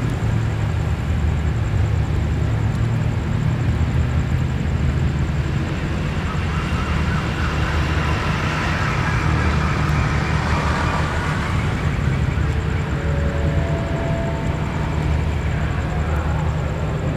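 Diesel-electric locomotive idling at a station platform: a steady low rumble, with faint higher-pitched sounds in the middle.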